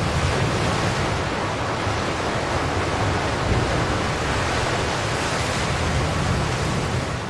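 Heavy sea surf breaking against a rocky shore: a loud, steady rush of crashing water that fades near the end.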